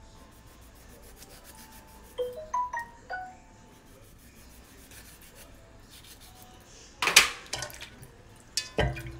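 Kitchen handling of a knife, lime and metal pot: quiet at first, then a loud scraping clatter about seven seconds in and a heavy knock near the end. A brief run of four or five chime-like notes sounds about two seconds in.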